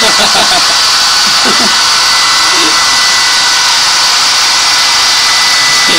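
Handheld hair dryer blowing hot air at full power: a loud, steady rush of air with a thin, constant whine from the motor.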